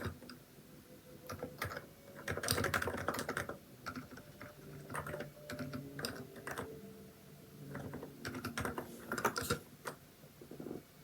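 Typing on a Hansung electrostatic-capacitive (contactless) keyboard with XDA-profile keycaps: bursts of rapid keystrokes separated by short pauses, quieter near the end.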